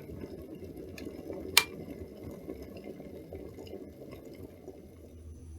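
Steady patter of rain, with a single sharp click about a second and a half in.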